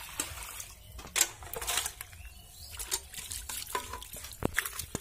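A hand swishing and splashing raw chicken pieces in a metal bucket of water to wash them, with irregular splashes and a few sharp clinks near the end.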